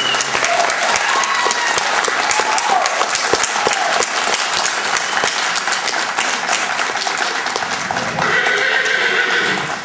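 Audience applauding, a dense steady clapping with some voices mixed in.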